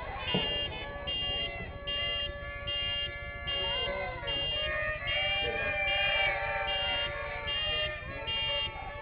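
Electronic fire alarm sounding a repeating high-pitched beep, a little more than once a second, with wavering tones rising and falling beneath it.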